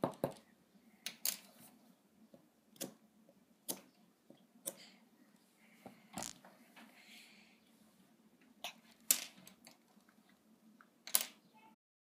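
Irregular taps, knocks and scrapes of a small plastic digging tool on a hard clay dinosaur-excavation egg, which knocks against the tabletop. The sound cuts off suddenly near the end.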